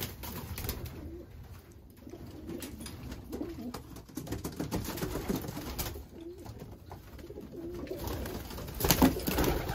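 Homing pigeons cooing inside a small wooden loft, low coos repeating throughout, with a short loud burst of noise near the end.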